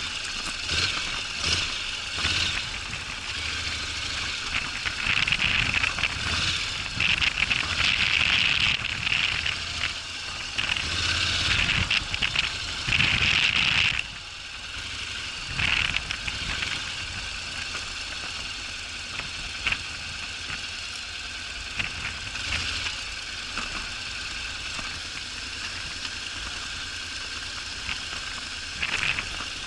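Honda NC750X DCT motorcycle's parallel-twin engine running while riding off-road, with knocks and rattles from the rough track picked up by an action camera. It is louder and rougher for the first half, then drops suddenly to a quieter, steadier run about halfway through.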